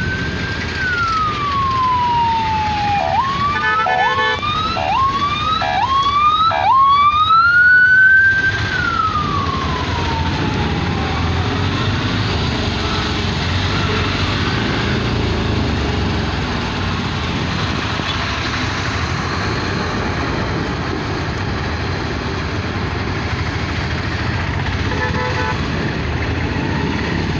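Emergency-vehicle siren in street traffic: a long falling wail, then a run of about five quick rising yelps, then one more slow rise and fall that fades out. A vehicle horn sounds briefly during the yelps and again near the end, over steady traffic noise.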